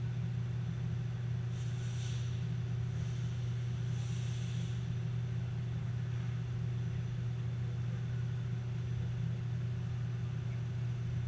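Steady low hum of a Haas ST10 CNC lathe idling, with faint brief hisses about two and four seconds in.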